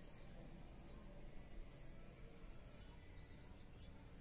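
Near-quiet outdoor background with faint, scattered high chirps of small birds.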